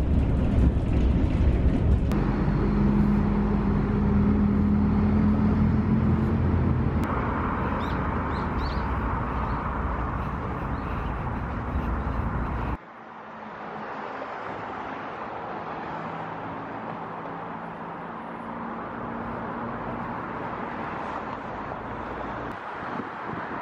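Rumble of a city bus heard from inside while riding, with a steady low engine drone and road noise. About halfway through it cuts off suddenly to a quieter, even outdoor noise of distant traffic and air.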